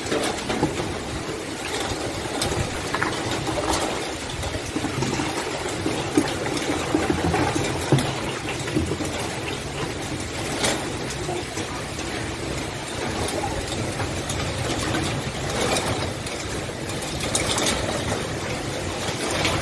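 Heavy rain falling steadily, with a few brief sharper hits from single drops or splashes.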